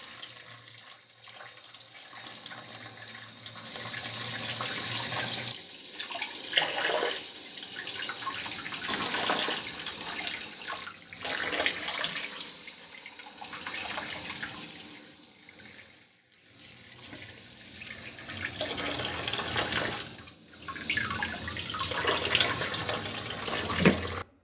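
Tap water running into a plastic bowl of fruit while hands swish and rub the fruit in the water, splashing. The sound swells and dips every few seconds, with a few sharper splashes.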